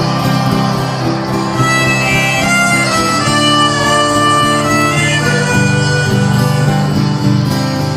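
Harmonica playing a melody over strummed acoustic guitar: the instrumental introduction of a country-folk song, before the vocals begin.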